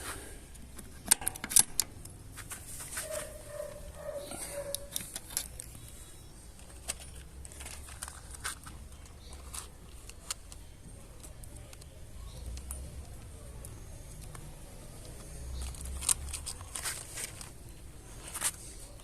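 Metal clicks and rattles from handling a bolt-action .22 rifle while its scope is adjusted: sharp clicks in a quick cluster about a second in and again near the end, over a low outdoor background.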